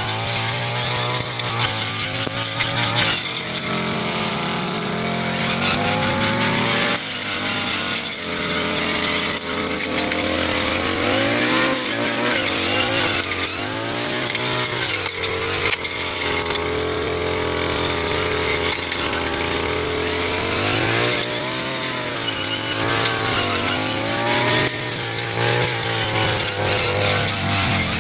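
Petrol brush cutter engine running while cutting grass, its pitch rising and falling again and again as the throttle is worked.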